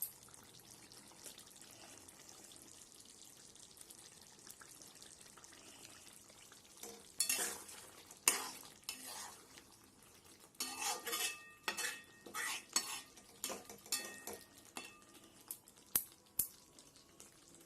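Spinach chicken curry sizzling faintly in a kadai, then from about seven seconds in a utensil stirring and scraping through it against the pan, with irregular clinks of metal on metal.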